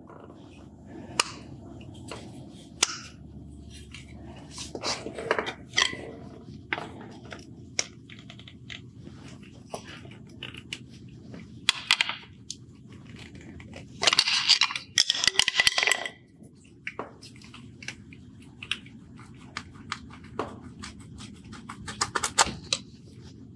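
Hand tools clicking and scraping against a dirt-caked plastic electrical connector, prying it apart, in irregular short bursts with a longer run of scraping about two-thirds of the way through.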